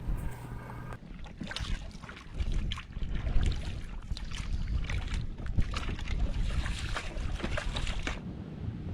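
Wind on the microphone and water around a small fishing boat, with scattered knocks and clicks as a baited longline is paid out over the side.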